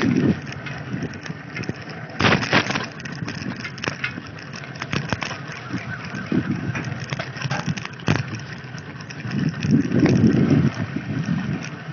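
Bicycle riding over a bumpy dirt road, picked up by a handlebar-held phone: a steady rumble of the tyres on dirt, with many sharp rattling clicks as the bike and phone jolt over the ruts.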